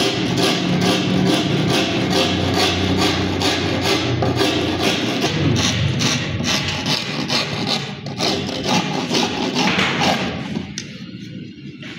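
Background music with a steady beat, which drops away about ten and a half seconds in.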